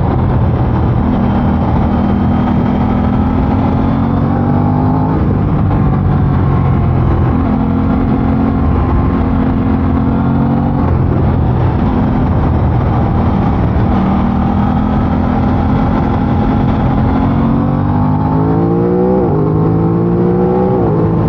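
Aprilia RS660's parallel-twin engine on its stock exhaust, riding under load: the pitch climbs steadily and then drops several times as it goes through the gears, with a quick run of short rises and drops near the end. A steady wind rush runs underneath.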